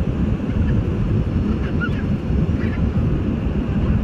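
Steady cabin noise of an Embraer E190-E2 airliner in flight, the even low rush of its engines and the air streaming past the fuselage, heard from a front window seat.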